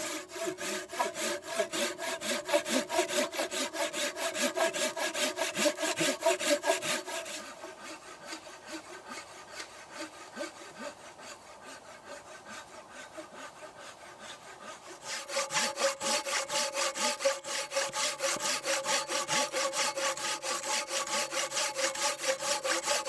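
Long-bladed hand saw cutting through a log in steady, rhythmic back-and-forth strokes, with a ringing note from the blade under the rasp of the teeth. The strokes are louder at first, soften through the middle, and grow loud again for the last several seconds.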